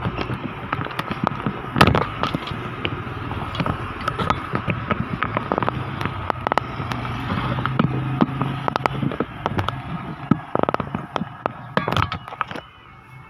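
Vehicle engine running at low revs, mixed with many sharp, irregular clattering knocks and rattles; the knocks bunch together near the end.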